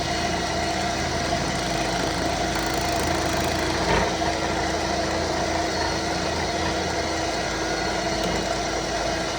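Wood lathe running steadily, with a turning tool trimming the spinning wood: a constant motor hum under a rough cutting noise, and one brief knock about four seconds in.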